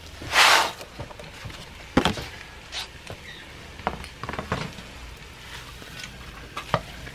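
Kitchen handling at the stove: a short rush of noise about half a second in, then scattered clicks and knocks of a utensil against a cooking pot while vegetables go into the pot filling.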